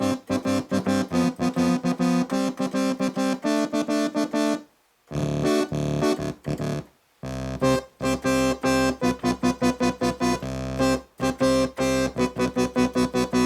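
Roland JX-3P analog polyphonic synthesizer, upgraded with a Kiwi-3P board, playing its Brass 1 preset: quick staccato chord stabs in a rhythmic pattern, broken by two short pauses.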